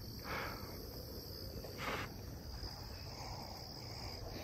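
Insects trilling in one steady high note, with two faint, brief soft sounds about a third of a second and two seconds in.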